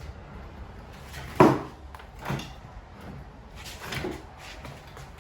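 A few knocks and clunks: one sharp, loud knock about a second and a half in, then two lighter ones.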